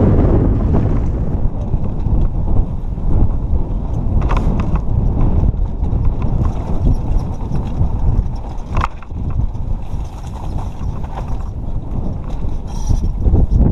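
Wind buffeting the microphone over the rattle and clatter of a 2015 Giant Trance full-suspension mountain bike descending a rough dirt trail, its tyres rolling on dirt, with a few sharp knocks about four and nine seconds in.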